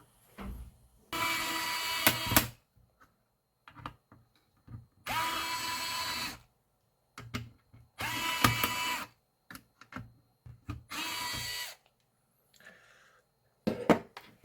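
Electric screwdriver backing out the screws of a mini PC's CPU cooler: four separate runs of about a second each, with short pauses between them.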